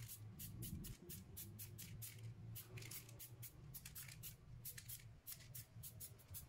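Aerosol spray-paint can spraying gold paint onto a motorcycle wheel rim in quick short hisses, several a second, with a few brief pauses.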